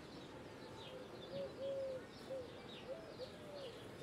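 A dove cooing in repeated three-note phrases, short, long, short, roughly every second and a half, while small birds give short high chirps.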